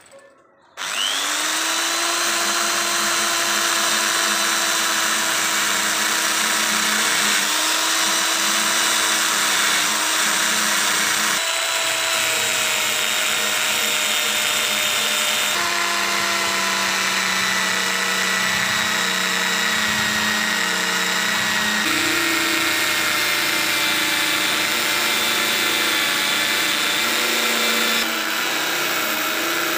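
Power tool spinning a steel wire brush disc against a rusty cast-iron hacksaw handle, scrubbing the rust off down to bare metal. The motor starts about a second in, its whine rising to speed, then runs steadily with a scratchy hiss of wire on metal; the pitch of the whine shifts a few times.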